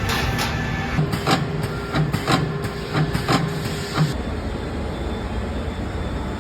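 Factory noise: a steady machine hum with a run of sharp knocks, coming in pairs about once a second, from about a second in until about four seconds in.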